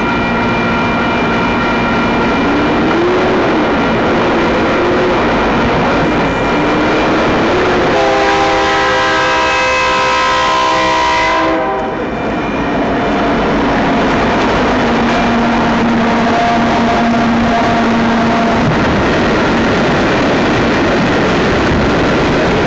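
Union Pacific freight train passing, its diesel locomotives and cars rumbling by steadily. A few seconds before the middle the locomotive horn sounds one long chord for about three and a half seconds, then cuts off.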